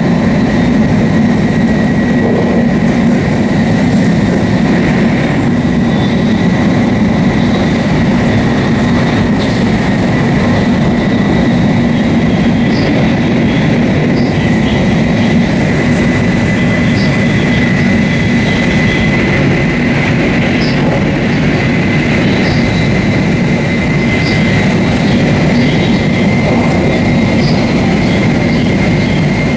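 Shinkansen bullet train running steadily at speed: continuous rumble of wheels on rail, with a thin high whine that slowly rises in pitch and faint occasional ticks.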